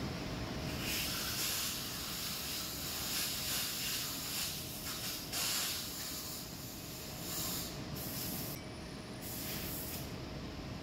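Machine tool running with a steady hum and a faint steady tone. Hissing comes and goes over it from about a second in, stopping just before the end.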